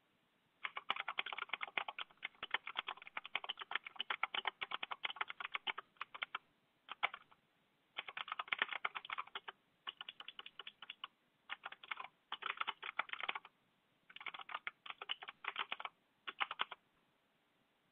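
Computer keyboard being typed on in quick runs of keystrokes separated by short pauses, starting just under a second in and stopping about a second before the end.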